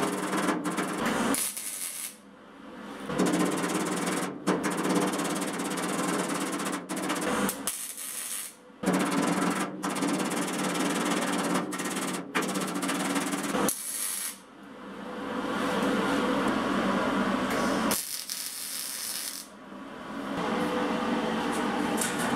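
A steel hammer beating the folded edge of a sheet-steel hull against a hand-held dolly, a fast run of metallic blows. The run stops briefly about 2, 8 and 14 seconds in, and for a longer pause near the end.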